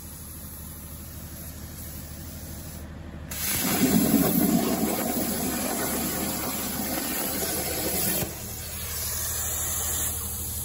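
CNC plasma torch at 90 A cutting 12 mm plate: a steady hiss, then about three seconds in a sudden, much louder rushing hiss that is loudest for a second or two, eases, and drops back about eight seconds in.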